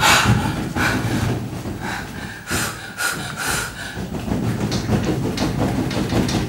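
A woman breathing hard through an open mouth in loud, gasping breaths that come quicker and more evenly in the second half. This is a spontaneous reaction during an acupuncture session, which the practitioner likens to holotropic breathing.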